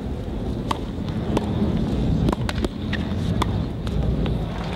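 Tennis ball struck by rackets and bouncing on a hard court during a short point of serve, return and volley: a string of sharp pops over a steady low rumble of outdoor noise.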